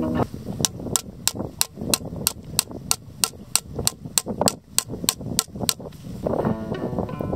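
Rubber mallet striking the head of a bank stick to drive it into the ground: a steady run of sharp knocks, about three a second, for some five seconds. Background music comes in near the end.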